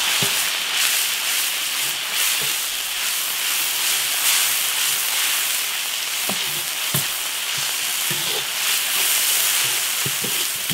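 Beef stir-frying in hot oil in an iron wok: a steady sizzling hiss, with a few knocks and scrapes of the spatula against the pan.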